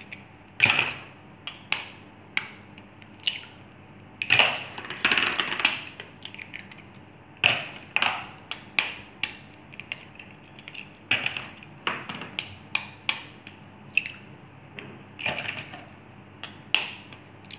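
Eggs cracked one after another with a knife blade and broken open over a glass bowl: a string of sharp cracks and taps, often several in quick succession, with eggshells dropped into a plastic basin.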